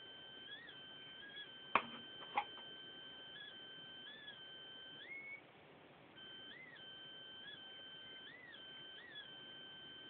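Steady, high-pitched electronic whine tied to a wired optical mouse, with short upward blips in pitch as the mouse and its sensor are handled. Two sharp clicks come about two seconds in. About five seconds in the whine glides higher, cuts out for under a second, then returns.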